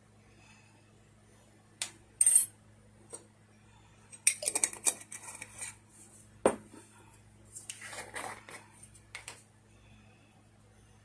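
Metal measuring spoon and kitchen utensils clinking against a stainless steel mixing bowl. There are a few sharp clinks about two seconds in, then two spells of rattling clatter with one heavier knock between them.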